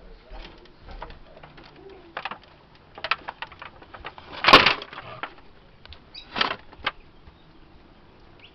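Footsteps and handling noise: a series of short knocks and rustles, the loudest a brief noisy burst about four and a half seconds in and another about six and a half seconds in.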